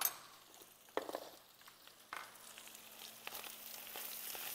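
Diced pepperoni and onion frying in a stainless steel pan: a few knocks of a utensil against the pan, then the sizzle grows louder from about three seconds in as the mixture is stirred with a spatula.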